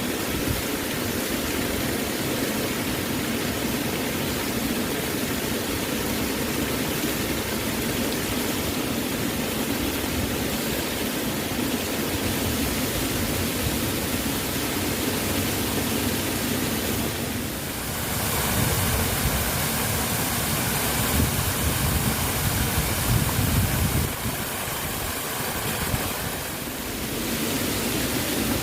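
Waterfall: a steady, even rush of falling water. About 18 s in it grows louder and deeper for several seconds, then eases back.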